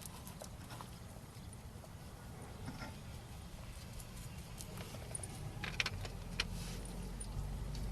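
A few light clicks and knocks, the clearest about six seconds in, as brake pads are handled while copper grease is applied to them, over a low steady hum.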